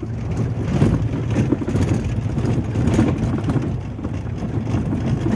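Jeep Wrangler driving along a rocky gravel track, heard from inside the cabin: a steady low engine and tyre rumble with the crackle of stones under the wheels.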